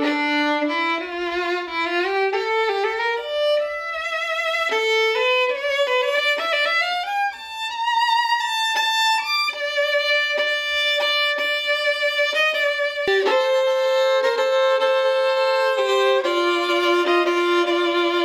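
A solo violin played with the bow, with vibrato: a melody climbing step by step in pitch over the first nine seconds or so, then long held notes.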